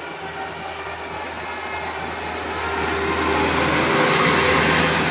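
A bus approaching and going by, its engine and tyre noise swelling to a peak about four seconds in over a steady low engine hum.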